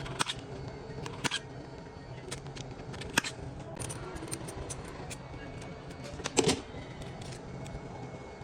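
Sharp clicks and taps of small repair tools working on a phone, scattered over a steady low hum. The loudest is a double knock about six and a half seconds in.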